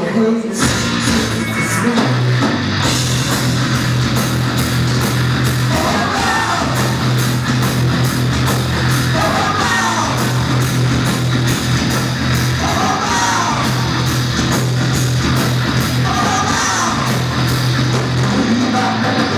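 Live heavy rock band playing loud: distorted guitars and bass holding a low note over a steady drum beat, with a singer's voice coming in every few seconds.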